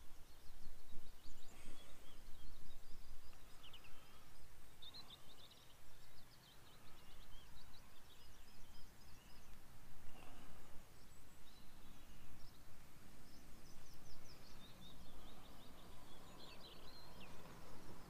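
Small songbirds chirping and trilling in short, repeated phrases, over a low steady rumble.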